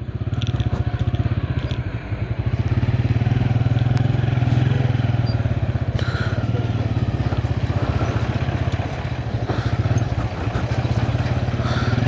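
A vehicle's engine running close by with a steady, rapidly pulsing low note as it moves off, getting louder just after the start and then holding steady.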